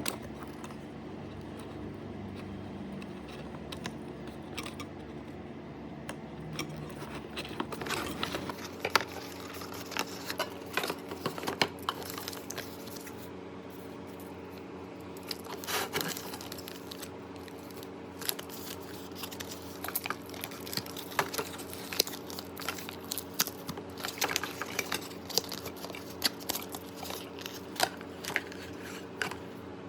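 Packaging and small parts being handled during an unboxing: rustling and crinkling with many scattered sharp clicks and taps, starting about eight seconds in, over a steady low hum.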